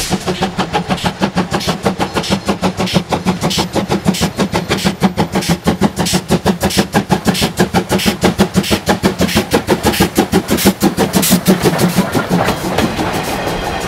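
C12 66, a C12-class steam tank locomotive, working hard: a steady, rapid chuff of exhaust beats, about five a second. Near the end, as the locomotive passes close, the beats blur into the clank of its running gear and wheel noise.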